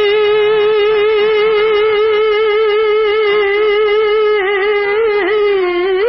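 A male bhajan singer holds one long, loud high note on a vowel, with an even vibrato and two quick ornamental dips in pitch near the end.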